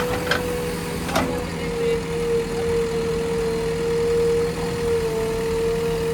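JCB backhoe loader's diesel engine running steadily, with a slightly wavering hum. One or two short knocks come in the first second or so.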